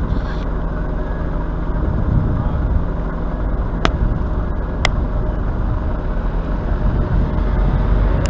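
Fuel tanker truck's engine running steadily while it pumps fuel through a hose into a helicopter. Two sharp clicks come about a second apart midway through.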